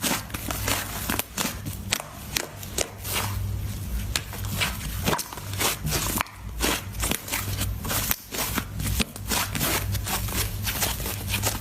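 Slime being squeezed and handled, giving a dense, irregular run of small crackles and pops.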